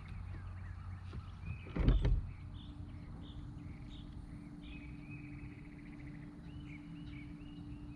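Electric trolling motor on a bass boat running with a steady hum from about two seconds in, just after a low thump. Faint bird chirps sound in the background.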